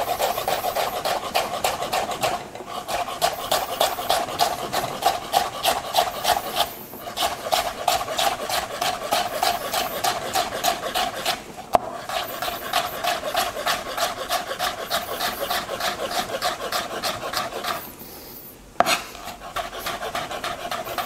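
Chef's knife julienning raw potato slices on a plastic cutting board: quick, even strokes, about four a second, each ending in a tap of the blade on the board. The run breaks off briefly a few times, and a single knock comes near the end.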